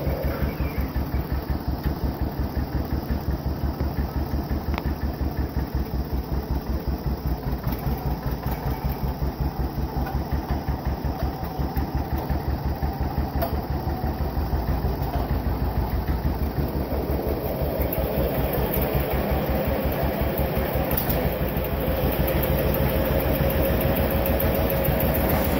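John Deere 720's two-cylinder diesel engine running with a steady, pulsing exhaust beat. It runs a little harder in the second half.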